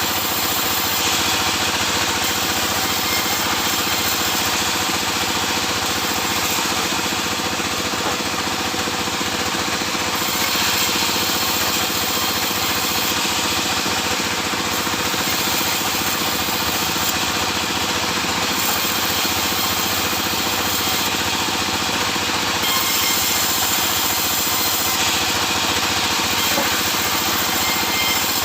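Sawmill machinery running steadily, sawing sengon laut timber, with a high hiss that swells and fades every few seconds.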